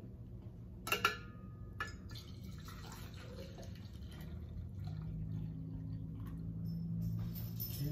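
Coffee pouring from a coffee pot into a cup, the trickle growing steadily louder as the pour goes on, after a couple of light clicks about a second in.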